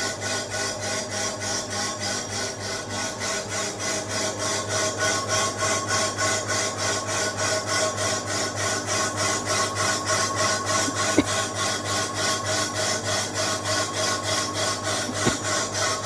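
Vertical CNC wheel repair lathe machining a spinning alloy wheel at a raised feed speed: a steady scraping cut that pulses about four times a second over a steady motor hum, with two faint ticks in the second half.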